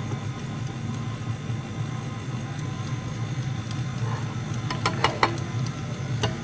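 Electric mixer running steadily at low speed in cake batter while the last of the milk is mixed in. A few brief clacks come about five seconds in.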